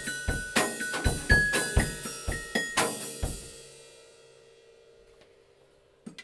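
Drum kit and a small glockenspiel played together in a quick, steady beat of about four hits a second, with bell notes over the drums. The playing stops a little past three seconds in and the cymbals and bars ring out.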